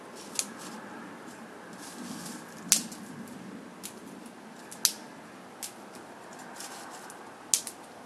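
Small dry twigs snapped by hand, a sharp crack every second or two, twice in quick succession near the end, over a steady background hiss.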